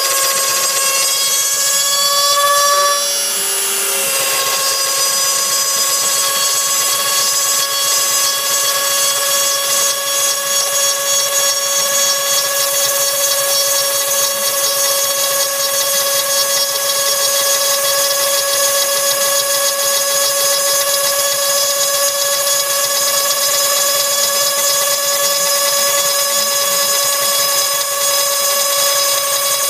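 DIYLILCNC desktop CNC machine cutting a cheese follower: its spindle motor runs with a steady high whine. The pitch wavers and dips briefly about three seconds in, then holds steady.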